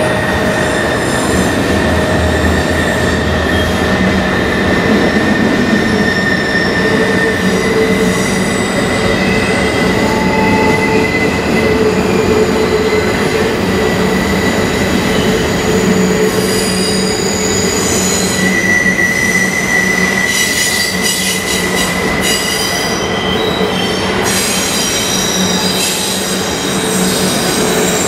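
CN intermodal freight train rolling by, its cars' steel wheels squealing on the rail: a steady rolling noise with several high, drawn-out squeal tones that shift in pitch and come and go.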